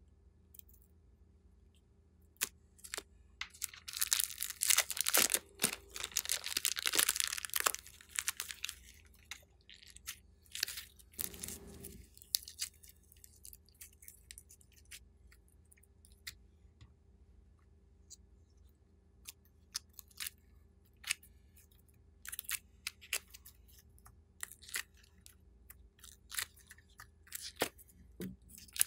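Plastic piping bag of red foam-bead slime crinkling and crackling as it is handled and squeezed, densest for about five seconds near the start. Scattered small clicks and crunches follow as the foam-bead slime and the clay pieces are handled.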